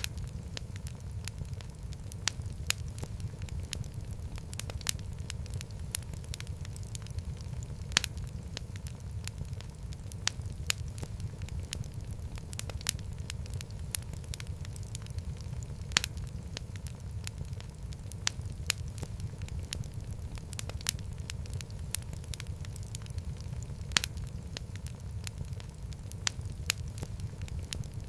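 Fireplace fire crackling: irregular sharp pops and snaps, a few much louder than the rest, over a steady low rumble of the flames.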